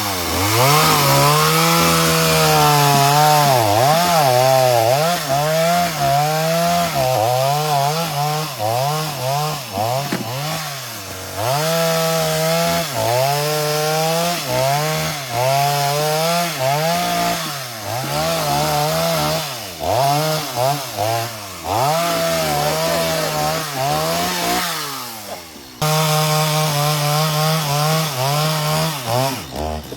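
Chainsaw running at high speed and cutting wood, its engine pitch repeatedly dipping and recovering every second or two as the chain bogs down under load.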